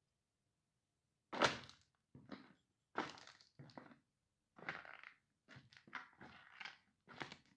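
Nike sneakers stamping on and crushing a flattened red cardboard box: a run of about eight irregular crunches and thuds, the first and loudest about a second and a half in.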